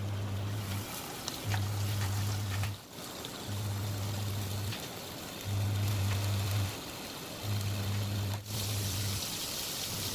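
Potato pieces frying in a nonstick pan with a steady sizzle. Under it, a low hum switches on and off in a regular cycle about every two seconds.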